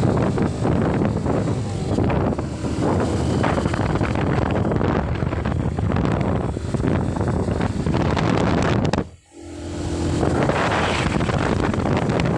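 Wind rushing and buffeting over the microphone of a moving vehicle, with the vehicle's running noise underneath. About nine seconds in it cuts out sharply for a moment, then comes back.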